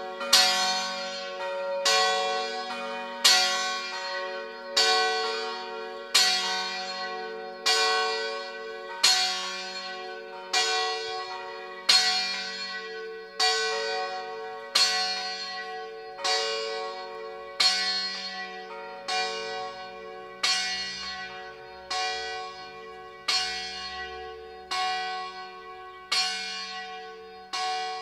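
Five church bells of San Zeno in Pelugo ringing together in a full swinging peal (a distesa). The strikes come one after another in a steady, regular pattern, about one every second or less, the ringing of each carrying on under the next.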